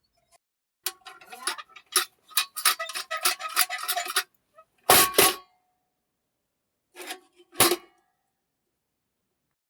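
Metal objects clinking and clattering in quick strikes that ring with a clear pitch, followed by two heavier clanks about five seconds in and two more near the end.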